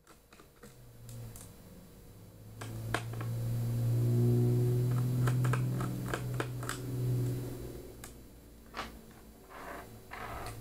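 Small clicks and taps of a screwdriver and parts being handled while an Eee PC netbook is taken apart. A low hum swells in the middle and fades out near the end.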